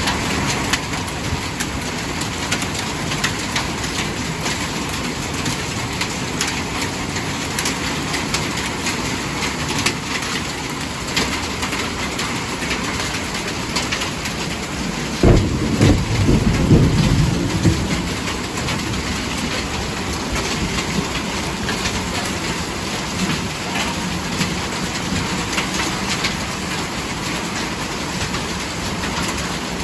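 Heavy rain pouring down in a storm, a steady hiss. About halfway through, a low rumble rises sharply and lasts a few seconds.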